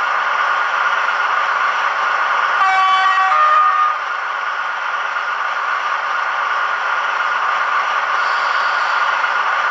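Sound decoder of a Roco H0 model of the ÖBB 2143 diesel locomotive playing the recorded sound of its twelve-cylinder T12c diesel engine running steadily, heard through the model's small loudspeaker. About three seconds in, a two-tone Makrofon horn sounds, two notes one after the other, for about a second.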